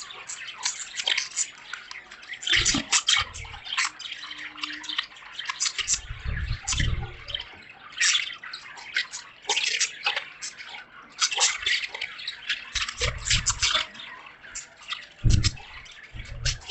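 Budgies chattering in rapid short chirps over the patter and drip of rain, with a few dull low thumps now and then.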